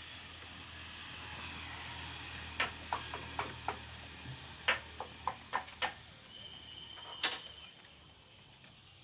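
Two quick runs of sharp knocks, about five in each, then one louder single knock, over a steady low hum.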